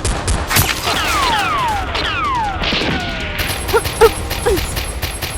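Action-film gunfire sound effects: several whistles falling in pitch, then from about three and a half seconds a rapid burst of automatic gunfire shots.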